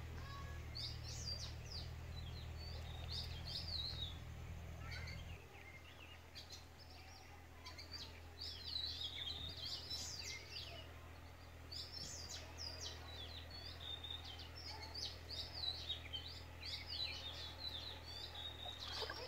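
Several small birds chirping and singing, short quick calls repeating throughout, over a low steady hum that drops away about five seconds in.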